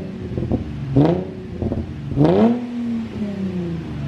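Nissan 350Z's 3.5-litre V6 blipped through a newly fitted Invidia Gemini exhaust: sharp revs about a second apart, each rising quickly and falling back. The last rev is held briefly before dropping to idle.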